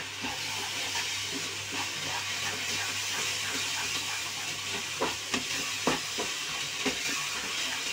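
Grated raw papaya halwa sizzling in a non-stick kadhai as its added sugar melts into syrup, stirred with a wooden spatula, with a few soft scraping knocks in the second half.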